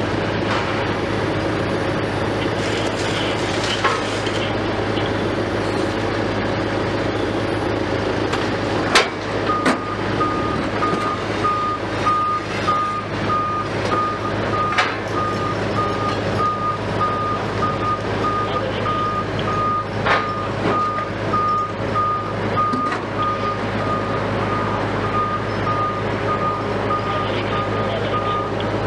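Heavy diesel machinery runs steadily. About nine seconds in, a telehandler's reversing alarm starts beeping at an even pace and carries on. A few sharp knocks come along the way.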